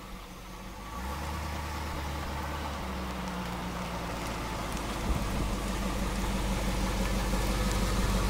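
A 1976 Chevrolet Corvette's original small-block V8 running at low speed as the car backs toward the microphone, growing steadily louder. There is a single thump about five seconds in.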